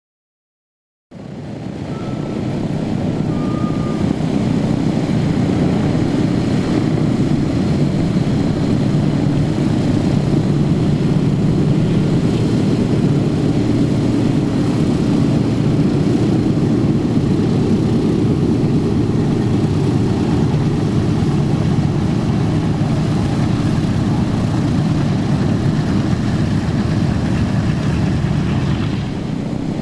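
Boeing B-17 Flying Fortress's Wright Cyclone radial engines running steadily on the ground, cutting in about a second in and building to a loud, even drone.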